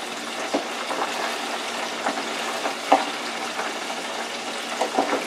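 Battered tempura shrimp frying in a countertop electric deep fryer: a steady sizzle of hot oil, with a few knocks of a utensil against the fryer as the pieces are stirred.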